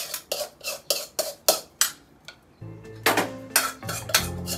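A spoon scraping and clinking against a stainless-steel pan as cooked Maggi noodles are scooped out, about four clinks a second, with a short lull about two seconds in. Background music with a low bass line comes in a little past halfway.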